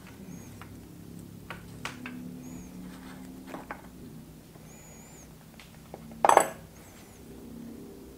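A wrench and hands working a fitting on a Subaru WRX STI power steering rack's metal housing: several light metal clicks and clinks, then one sharp, ringing metallic clink about six seconds in.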